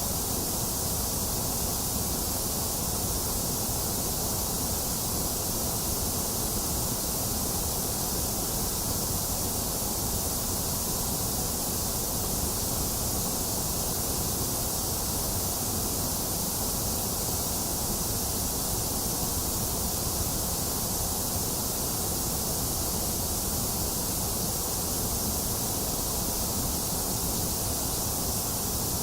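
Box fan running steadily together with falling rain: an even, unbroken hiss, brightest in the highs, over a low rumble.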